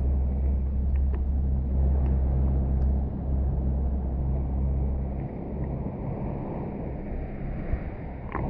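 A low, steady rumble with a deep hum in it, heard from right at the water's surface, with a few faint ticks and splashes of water near the microphone.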